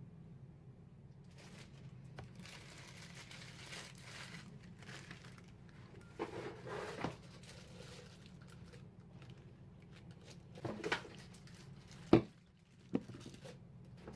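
Plastic covers and packaging crinkling and rustling in irregular bursts as the blender parts are handled, with a sharp knock about twelve seconds in, the loudest moment, and a smaller one just after. A steady low hum runs underneath.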